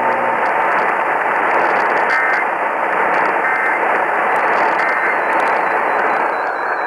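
Dense static hiss from an AM radio receiver. Through it come three short two-tone data bursts about 1.3 seconds apart, the end-of-message code that closes an Emergency Alert System broadcast.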